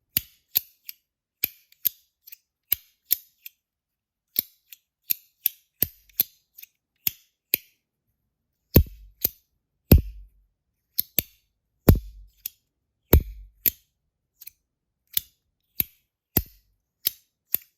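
Compoform V1.1 Mini magnetic slider fidget being worked back and forth, its magnet-loaded metal plates snapping together with sharp clicks about twice a second. A handful of snaps in the middle stretch are heavier, with a low thud under the click.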